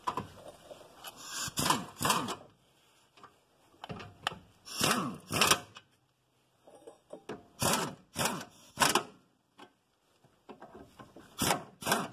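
Hand tools and metal parts being handled while a reinforcing plate under the car is bolted on: scattered clanks, knocks and scrapes in short bursts, with quiet gaps between.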